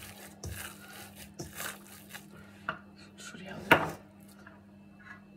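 Hands pressing and turning soft dough in a stainless steel mixing bowl, with irregular soft knocks and scrapes of the bowl and dough, and one sharper knock about two-thirds of the way through as something is moved on the counter. A faint steady hum runs underneath.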